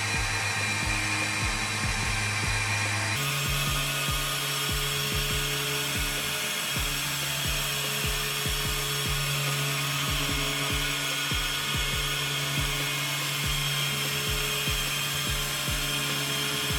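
Background music with a steady beat. Under it, a machine polisher whirs steadily as it works compound into the car's paint.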